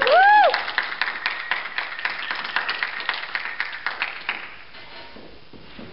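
The last sung note of the dance music ends, and a small audience claps, the separate claps thinning out and stopping about four and a half seconds in.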